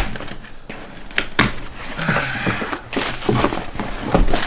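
A cardboard product box being handled and opened: irregular knocks and taps with rustling of packaging.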